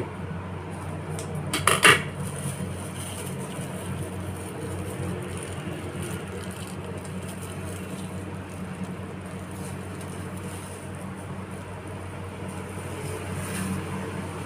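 A few sharp clinks of a utensil against dishware about two seconds in, over a steady low hum.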